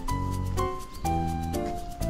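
Background music: a light melody whose notes change about twice a second, over a steady tapping beat.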